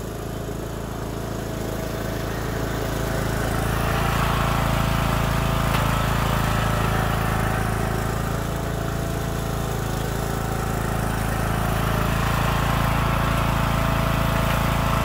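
Troy-Bilt riding lawn mower's small engine running steadily as the mower drives forward, growing louder over the first few seconds as it comes closer. It is a test drive after a seven-speed manual transmission replacement, running in forward gear without the grinding or skipping of the old transmission.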